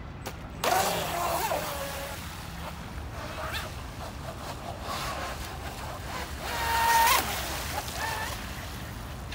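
Radio-controlled model boat running fast across a pond: its motor whines, rising and falling with the throttle, over the hiss of water and spray off the hull. The motor is loudest about a second in and again around seven seconds in, where the whine climbs and then cuts off.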